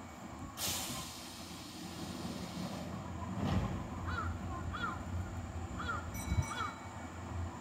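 Low, steady rumble of a Kintetsu electric commuter train rolling slowly into the station, with a short hiss about half a second in. A crow caws four times, in two pairs, in the second half.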